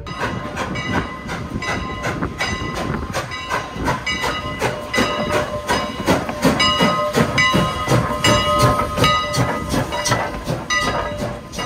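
A steam train hauled by a 2-6-0 locomotive running, with rapid, uneven clicking and a steady high tone that is strongest through the middle.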